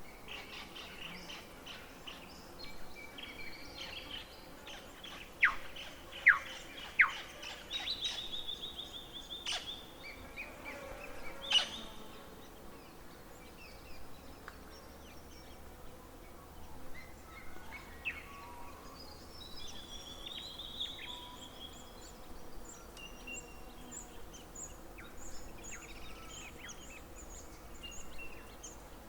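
Birds singing and calling: many short high chirps and trills, with three loud, sharp downward-sweeping calls in quick succession about six seconds in.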